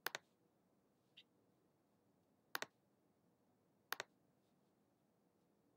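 Computer mouse clicks against near silence: three double clicks, each a press and release a split second apart, near the start, about two and a half seconds in and about four seconds in, with one faint click between the first two.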